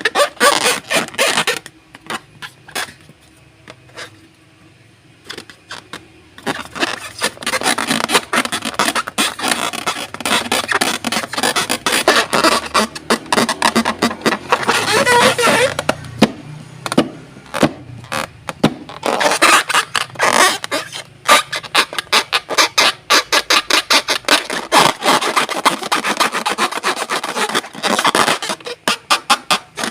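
Slime being squished and stirred, giving dense runs of sticky clicks and crackles, with a quieter lull a few seconds in.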